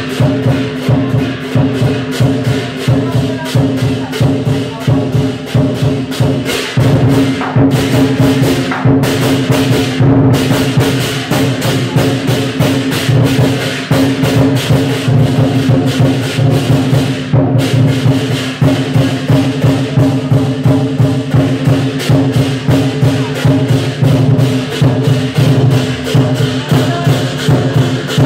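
Lion dance percussion: the big lion drum beating fast with crashing cymbals and gong, keeping a loud, steady driving rhythm. The cymbals drop out for an instant a few times.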